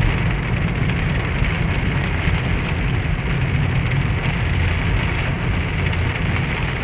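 Heavy rain falling on a moving car, heard from inside the cabin: a steady hiss of rain with fine ticking, over a steady low rumble of the car driving on the wet road.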